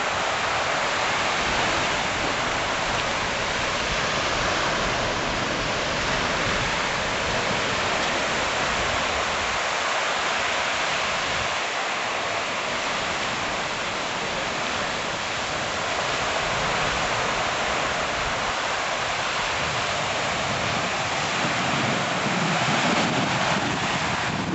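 Giant Geyser in full eruption: a steady, unbroken rush of its water column jetting and the spray falling back.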